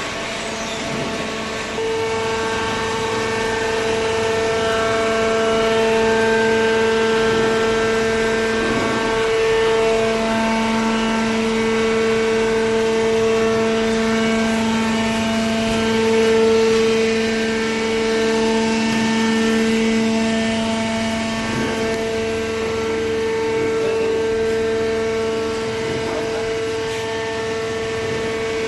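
Hydraulic paper baler running, its motor and pump giving a steady droning tone that gets louder about two seconds in.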